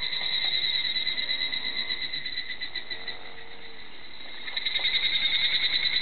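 Higurashi cicadas (Tanna japonensis) singing their clear-toned, rapidly pulsing trill. One phrase fades away through the middle, and a new loud phrase starts near the end.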